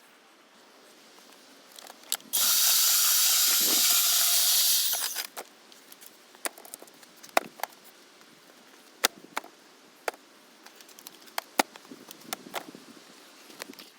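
A loud, steady hiss lasting about three seconds, then scattered sharp clicks and knocks, as from handling metal.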